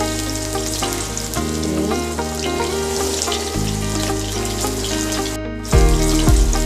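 Food sizzling in hot oil in a pan, heard over background music; the sizzling cuts off about five and a half seconds in and the music gets louder.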